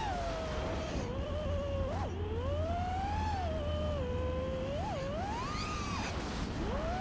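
FPV racing quadcopter's brushless motors whining, the pitch rising and falling constantly with the throttle, over a steady low rumble.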